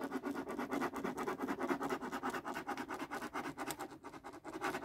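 A pen scribbling back and forth on paper, crossing out a line of a printed chart: quick, even scratching strokes, several a second, with a brief lull near the end.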